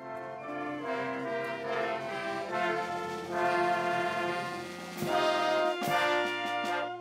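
Military brass band with trumpets and trombones playing slow, held chords. About five seconds in it changes to a livelier passage of short, accented notes.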